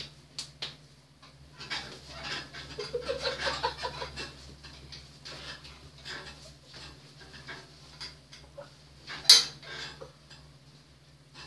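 Rustling and scattered clicks and knocks as a person climbs and shifts about on a bed, with one loud sharp knock about nine seconds in. A steady low hum runs underneath.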